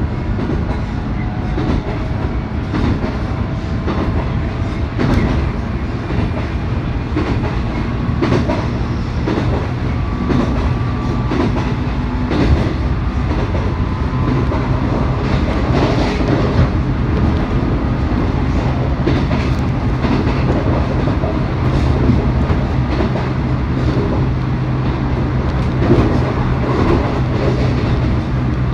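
JR East 719 series electric multiple unit running along the line: a steady motor hum that strengthens about halfway, with faint steady tones above it and irregular rail-joint clicks.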